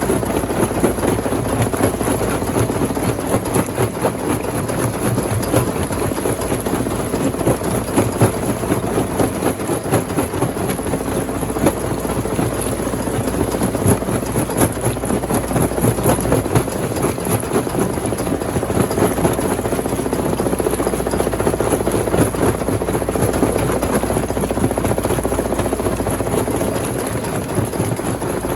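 Rock crusher machine running, with a dense, irregular clatter of stones being crushed over a steady low drone.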